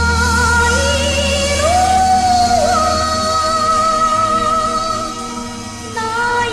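A song: a woman's voice singing long held notes with vibrato over instrumental backing, with a low steady drone beneath that fades out about halfway through.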